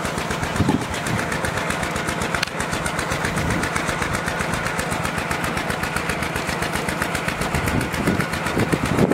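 Small pump engine running steadily with a rapid, even firing beat.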